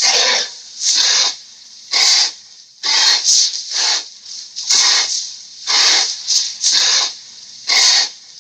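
Dinosaur sound effect for Acrocanthosaurus: a series of short, sharp hisses, about one a second, some coming in quick pairs.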